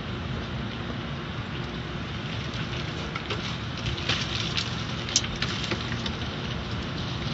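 Car wash water spraying and splattering on the windshield and body, heard from inside the car's cabin over the steady hum of the wash machinery. A few sharper spatters and a click come about halfway through.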